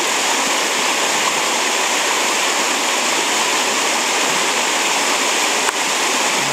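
Steady rush of fast river water churning through rapids past a net barrier, with one brief click near the end.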